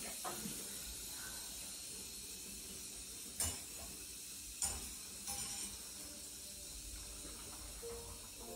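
Faint steady hiss with a few sharp clicks, the two loudest about three and a half and four and a half seconds in.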